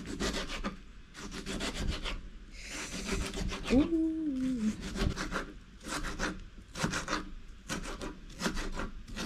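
A kitchen knife chopping tomatoes on a plastic cutting board, in quick bursts of rapid strokes. A short hum that slides up and down breaks in about four seconds in.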